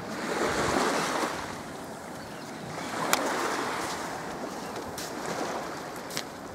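Small waves washing up a pebbly shore, swelling and falling back, with wind buffeting the microphone. A few sharp clicks come through, the loudest about three seconds in.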